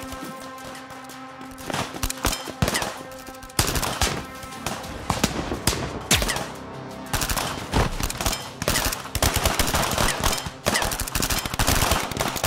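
Battle gunfire, rifle shots and machine-gun fire, over a music score: scattered shots begin about two seconds in and build into dense rapid fire in the second half.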